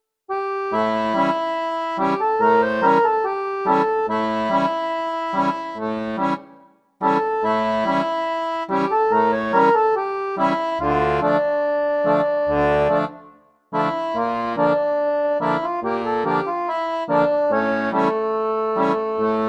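Instrumental background music with a steady bouncing rhythm of low notes and chords, breaking off briefly twice and starting again.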